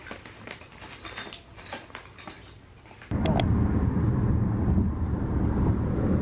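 Faint soft clicks for about three seconds, then a sudden steady low rumble that starts with two sharp clicks and carries on.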